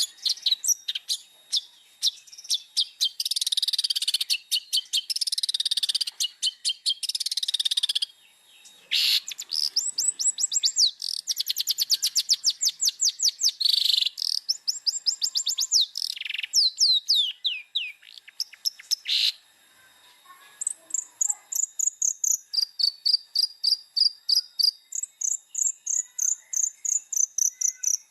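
Long-tailed shrike singing a fast, varied song: quick runs of sharp repeated notes, scratchy chattering phrases, then fast trills of sweeping notes. After a short pause, about two-thirds of the way in, comes a long run of regular notes alternating between two pitches.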